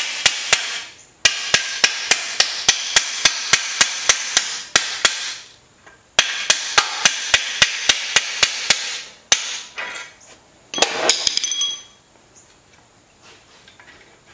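Hand tool working the steel engine-mount bolts of a 1980 Yamaha YZ250: three runs of sharp, evenly spaced metallic clicks, about three a second, each ringing briefly. A short metal clatter comes near the end.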